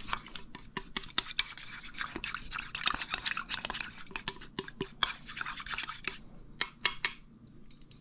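A spoon stirring fast in a small bowl, scraping round it as starch is mixed into cold water for a slurry, followed by a few sharp clicks near the end.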